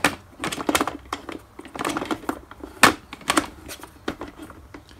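Irregular clicks and light metallic clinks as an adjustable ratcheting handle is turned by hand onto the backrest bolt of an office chair's steel seat plate, with one sharper knock a little under three seconds in.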